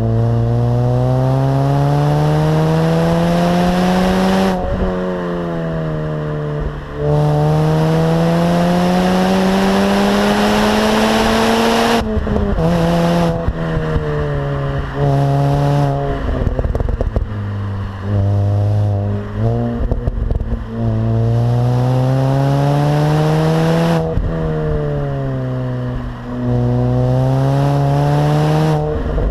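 Mini Cooper S R53's stock supercharged 1.6-litre four-cylinder engine pulling hard through the gears: the engine note climbs steadily for several seconds, drops suddenly at each upshift, then climbs again. In the middle come shorter climbs and falls, as with lighter throttle or quicker shifts.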